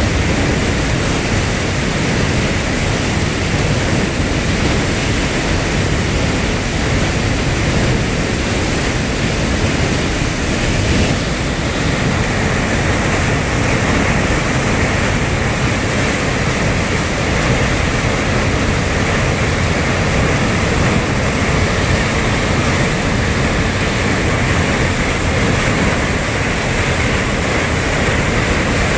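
Muddy floodwater rushing and churning out of a dam spillway outlet into a concrete channel at a very high release of about 3,160 cubic feet per second. It makes a loud, steady rushing noise with no let-up, which turns a little hissier about eleven seconds in.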